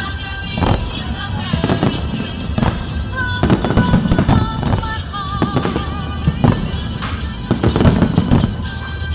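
Fireworks bursting in quick, irregular bangs, several a second with rumbling echoes, over music.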